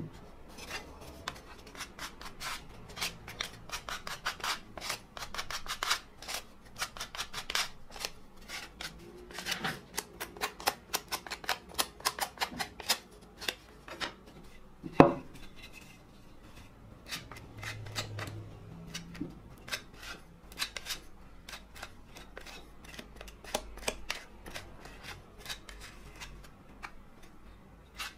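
Steel putty knife scraping over a wooden hand plane body, spreading a glue-and-sawdust filler in quick strokes with short pauses. A sharp knock sounds about fifteen seconds in.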